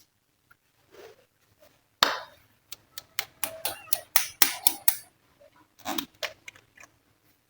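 Glossy slime being pressed and worked by hand, giving a quick run of sharp, sticky clicks and pops from about two to five seconds in, and another short cluster near six seconds.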